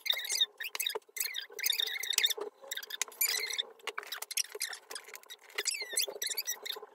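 A girl's speech sped up into a fast, high-pitched chatter, her talking fast-forwarded.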